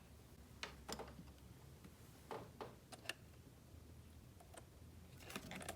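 Near silence: faint scattered clicks and taps over a low steady hum.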